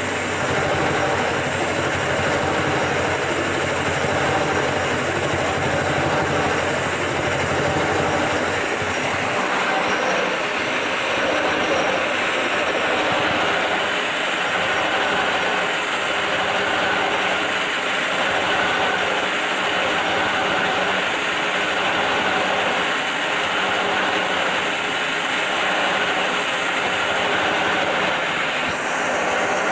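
Milling machine running and cutting steel with a large cutter: a steady, continuous machining noise from a shallow, wide cut.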